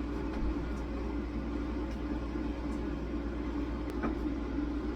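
A steady low machine hum, with one light click about four seconds in.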